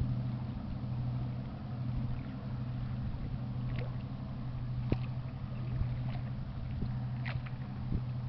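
Steady low drone of a pusher tug's diesel engines as it pushes a large barge upriver, with a few faint clicks.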